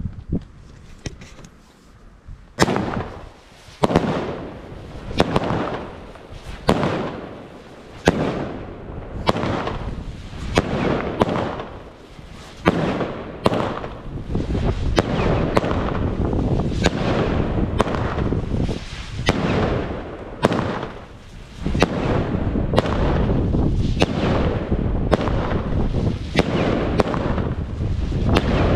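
WECO Stormy Flash firework battery firing its shots one after another, each a sharp crack followed by a fading hiss. The first shot goes off about two and a half seconds in, and the shots then come roughly every second and a half. Toward the end they come faster, with steady fizzing between them.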